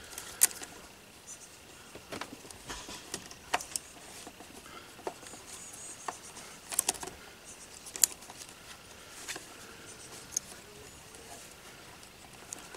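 Irregular small plastic clicks and taps from handling a GoPro Karma drone's arm and fitting its wiring-harness connectors by hand, with sharp clicks about half a second in and about eight seconds in.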